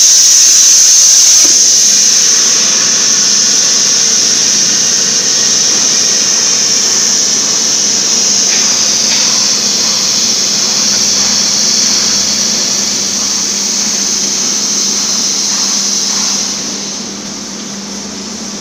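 CNC plasma cutting torch at the end of a cut. The loud arc hiss stops about two seconds in, and a steady high-pitched hiss of air carries on until it drops away near the end. A low machine hum runs underneath.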